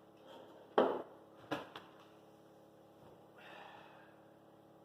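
Rear tractor tire bead seating on the rim under air pressure: a sharp loud pop just under a second in, a smaller pop about half a second later, then a short faint hiss.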